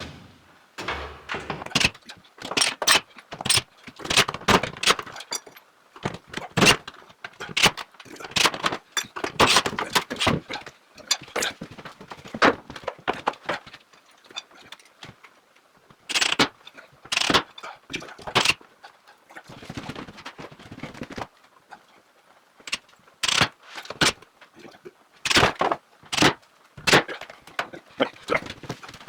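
Irregular clicks, knocks, rattles and scrapes of hardware being handled and pulled out of a network cabinet.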